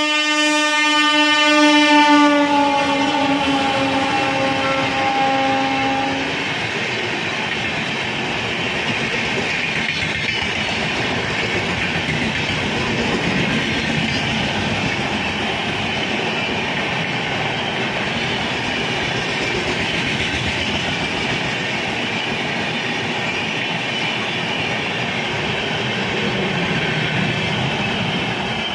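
Indian Railways WAP7 electric locomotive sounding its horn for about six seconds, the pitch dropping a little as it passes. Then the steady noise of the express's coaches running through on the rails, fading near the end.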